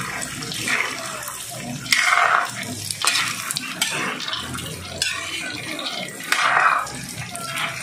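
Peanuts frying in hot oil in a frying pan, sizzling while being stirred with ladles that scrape and clink against the pan in irregular strokes.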